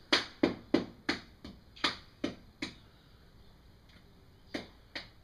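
A quick series of sharp clicks or taps, about three a second, stopping a little under three seconds in, then two more near the end.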